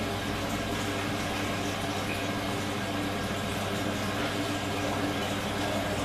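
Beko front-loading washing machine running: water moving inside it over a steady low hum.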